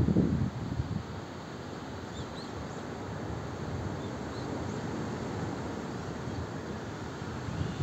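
Wind buffets the microphone for the first half second, then a steady outdoor hiss carries on. A few faint, short bird chirps come between about two and five seconds in.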